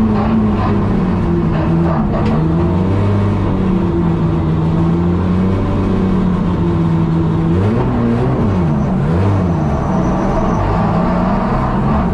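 BMW M3 E92 drift car's engine heard from inside the cabin, running at low revs as the car creeps along. Around eight seconds in, the engine note dips and comes back up a couple of times.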